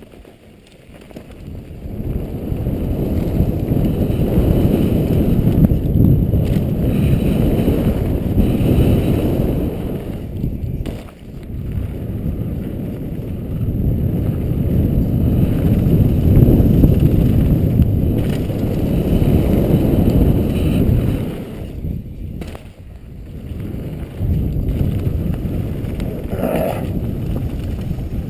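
Wind rushing over a helmet-mounted camera's microphone and tyres rolling on a dirt trail during a fast downhill mountain-bike descent, the rush swelling and easing with speed. A brief squeal comes near the end.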